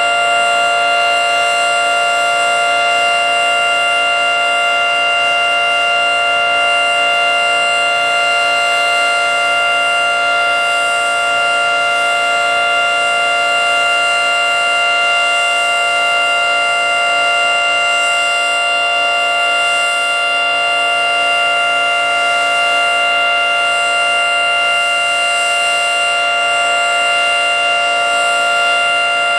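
Federal Signal 3T22 three-tone outdoor warning siren sounding a steady Alert signal, a loud sustained chord with no rise or fall in pitch.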